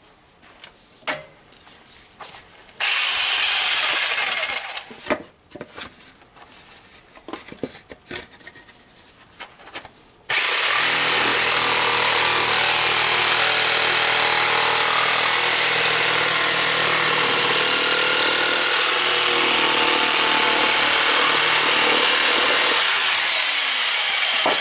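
Electric saber saw cutting through a hard, dense oak knot. A few short bursts and handling clicks come first, then a long steady cut from about ten seconds in.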